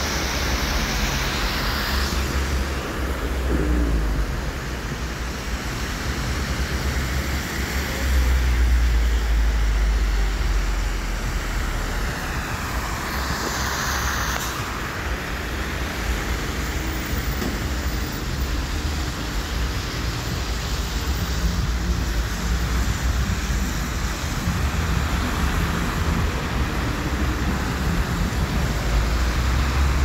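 Road traffic passing on a wet, slushy road: cars and buses driving by in a continuous noisy din with a low rumble, one vehicle passing louder near the middle.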